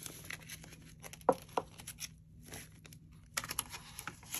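Paper banknotes rustling and flicking as they are counted by hand, with two sharp snaps about a second and a half in and a quicker run of rustling near the end.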